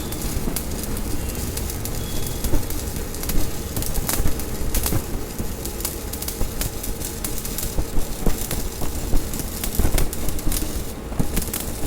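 Stick-welding arc burning on thin sheet metal at low current, about 55 amps: a continuous crackling and sputtering with frequent sharp pops, easing briefly near the end.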